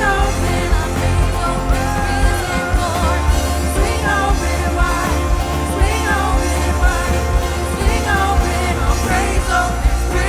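Live worship band playing a contemporary Christian song, with lead singing over electric guitars, keys, bass and drums.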